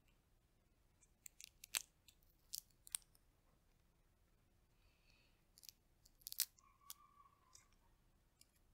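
Brittle roasted chestnut shells cracking and being peeled by fingers: quiet, sharp snaps and crackles in two bursts, one starting about a second in and another around six seconds in.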